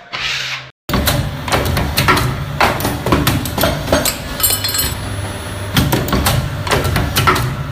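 A short rasping rub that cuts off just under a second in, then machinery running with a steady low hum under a dense, irregular clatter of knocks and clinks.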